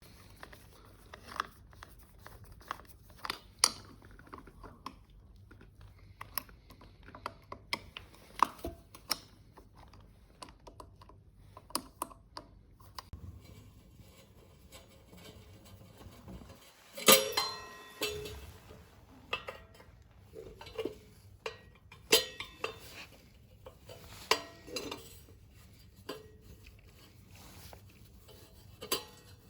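Metal objects being handled: scattered clinks and knocks, irregular, with one loud ringing metal strike about 17 seconds in and a run of knocks a few seconds later.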